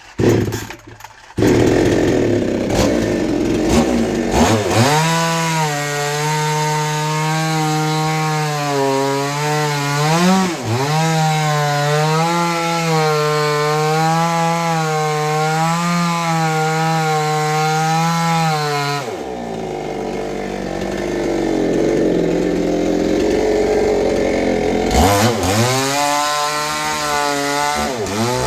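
Chainsaw engine running at high revs while cutting wood, its pitch wavering as the bar bites in. About 19 seconds in the high engine note drops to a lower, rougher sound for several seconds, then climbs back up near the end.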